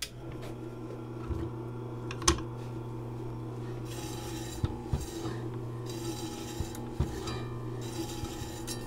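Nella electric meat slicer switched on, its motor and spinning blade humming steadily, with repeated rasping strokes and sharp clicks as the carriage pushes a dry-cured capocollo through the blade.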